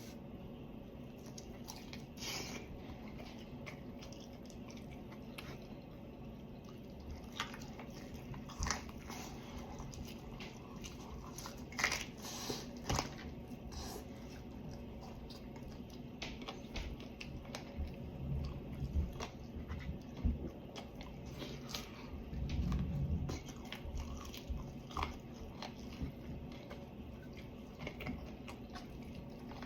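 A person eating fried chicken: scattered bites into the crispy coating crunch and crackle, with chewing in between. The sharpest crunches come about twelve seconds in, and denser chewing follows later.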